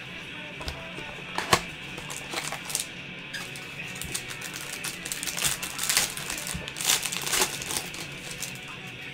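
Foil trading-card pack being handled and crinkled, with a dense run of crackling about halfway through. There is a sharp click about a second and a half in as the cardboard box is opened. Background music plays throughout.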